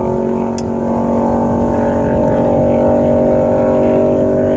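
Speedboat engine running flat out at a steady high pitch, with a low rumble of wind and water underneath.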